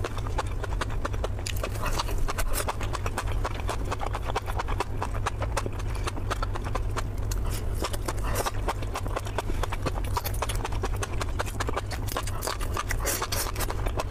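Close-miked mouth sounds of eating grilled enoki mushrooms: a dense run of wet clicks and smacks from chewing and sucking in the soft strands, busiest about eight seconds in and again near the end.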